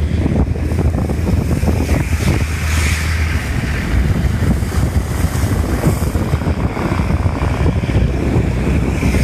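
Steady loud rush of wind and heavy rain buffeting the microphone from a moving vehicle, with a low hum underneath for the first three seconds or so.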